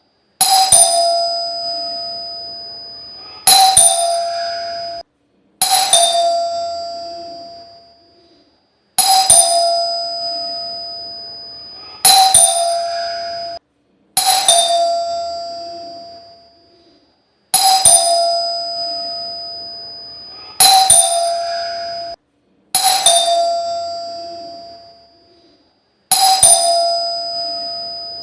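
Electric doorbell chime rung over and over, about ten times, each a sharp ding that rings on one clear tone and fades over two or three seconds. The rings come every two to three seconds, and some are cut short by the next.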